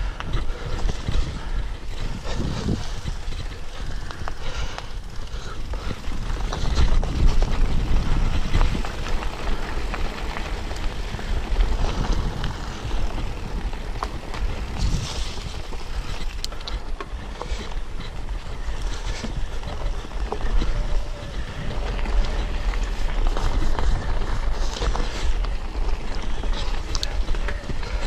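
Mountain bike riding fast down a rough dirt and stone trail: tyre noise and the bike rattling over bumps, with wind rumbling on the camera microphone.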